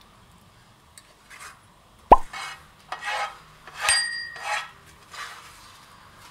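Subscribe-button animation sound effects: a quick rising pop about two seconds in and a run of short whooshes, then a click with a brief ringing tone around the four-second mark as the bell icon is pressed.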